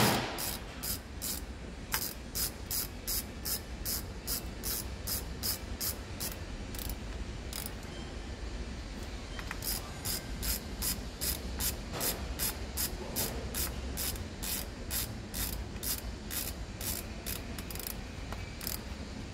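Hand ratchet wrench clicking in a steady run of strokes, about two clicks a second, with a short pause partway through. A sharp knock right at the start.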